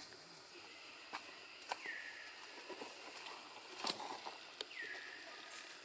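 Faint outdoor ambience: a short call that drops in pitch and then holds, repeating about every three seconds, with scattered light clicks and rustles.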